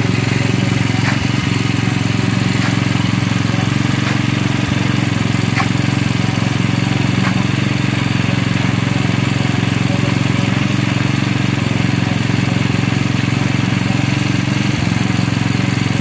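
Engine running steadily at one constant speed on a concrete pour: an even, deep drone that does not rise or fall. A few faint clicks come through over it.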